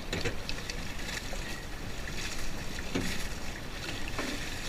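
Canoe paddling: water splashing and sloshing, with a few sharp knocks.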